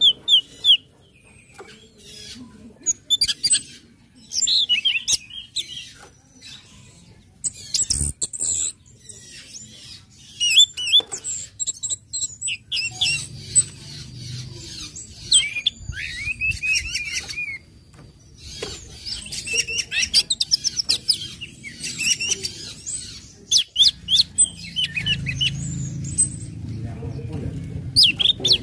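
Orange-headed thrush calling in bursts of sharp chips and squeaky, wavering notes, with short pauses between the clusters; a faint low hum runs under some passages.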